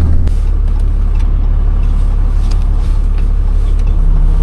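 Tow truck (wrecker) driving, heard from inside the cab: a steady low engine and road rumble. A steady low hum joins near the end.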